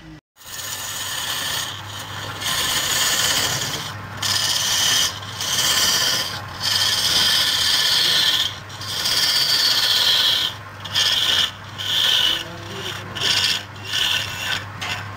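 Wood-turning chisel cutting into a log spinning on a lathe: a loud, scraping hiss of shavings being peeled off, broken every second or so by short gaps, over a low steady hum.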